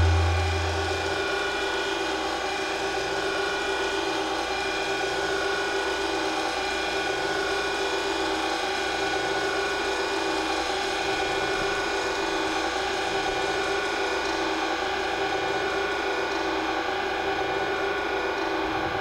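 Droning outro of an experimental no-wave track: several held tones over a fast, even mechanical clicking texture, with a low bass note dying away in the first second.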